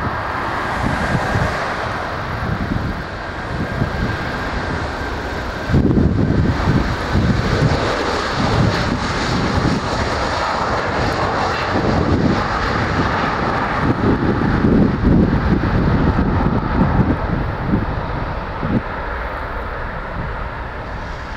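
An Airbus A330-300's Rolls-Royce Trent 700 jet engines at takeoff power as the airliner accelerates down the runway: a loud, continuous jet roar with a faint steady whine in the first few seconds. The roar jumps louder about six seconds in and carries a heavy, uneven low rumble.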